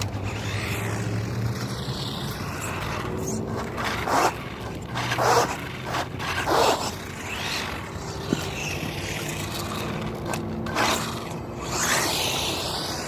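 Fayee FY03 Desert Eagle RC truck's electric motor whining, its pitch falling and rising with the throttle, with several short scraping bursts as the truck slides and scrubs on asphalt.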